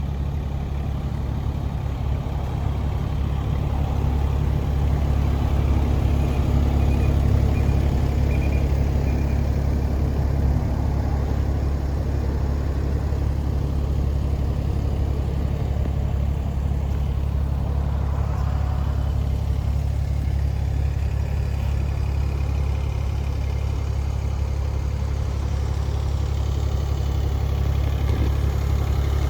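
Kubota U-17-3A mini excavator's diesel engine running steadily with an even low drone.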